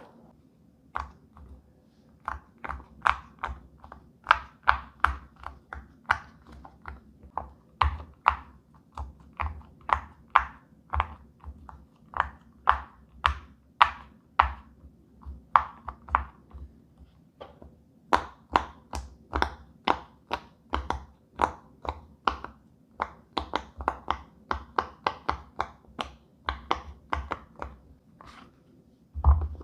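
Silicone pop-it fidget toy bubbles being pressed one after another: a steady run of sharp little pops, two or three a second, with a brief pause about two-thirds of the way through.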